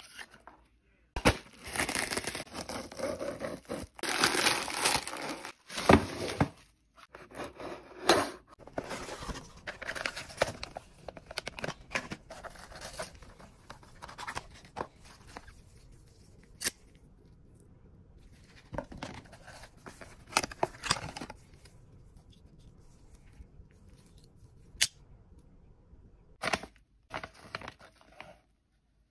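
Package unboxing: a knife slits and tears open a plastic poly mailer, then cardboard, shredded paper filler and plastic packaging rustle and crinkle as they are handled. A few sharp clicks and taps come in the quieter second half.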